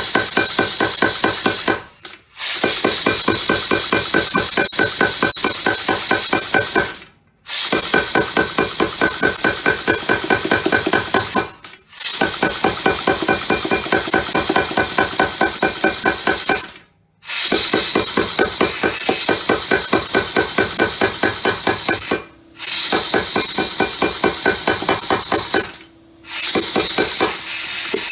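Pneumatic Bulldog power hammer striking hot half-inch square bar stock in runs of rapid, even blows, stopping briefly six times. This is a bar being necked down for a forged leaf.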